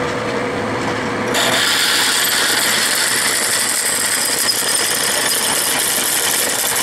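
Metal lathe running with a half-inch twist drill boring out the hole in a small cast iron knob. About a second in, the drill's steady hissing cutting noise comes in over the lathe's hum.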